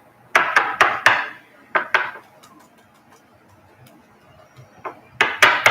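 Trading cards being handled on a tabletop: a quick cluster of sharp taps and knocks about half a second in, a pair a little later, and another cluster near the end.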